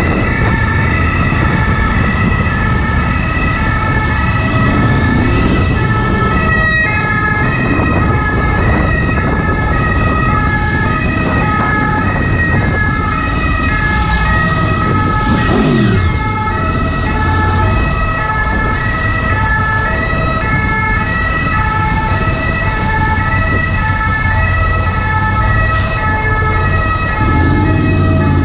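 A French ambulance's two-tone siren keeps alternating between a high and a low note, over a steady low rumble.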